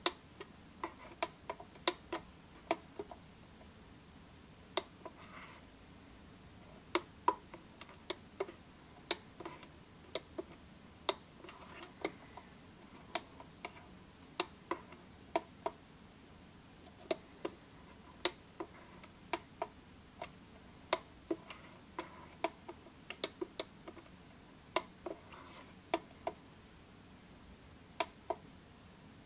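Push buttons on a D30 digital valve positioner's keypad clicking as they are pressed to step through its menu: dozens of short, sharp clicks at irregular intervals, some coming two or three in quick succession.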